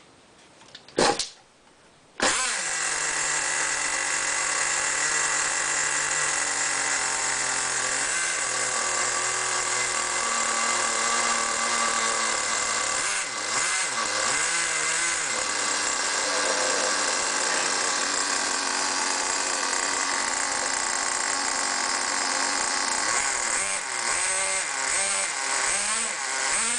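Small nitro engine of a 1/10-scale RC truck, pull-started: a short tug on the starter cord about a second in, then the engine catches about two seconds in and runs steadily, with a few brief changes in revs.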